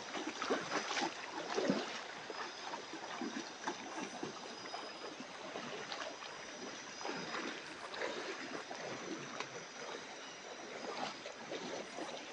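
Water sloshing and splashing irregularly in a shallow stream as a diver moves through it while fishing.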